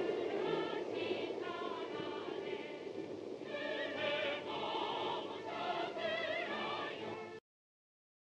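A choir sings a song with wavering vibrato over the low rumble of a train pulling out. Both cut off abruptly near the end.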